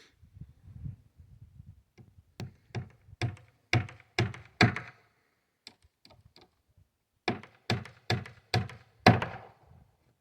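Hammer driving nails into wooden framing: two runs of five or six blows, about two a second, with a pause of a couple of seconds between them.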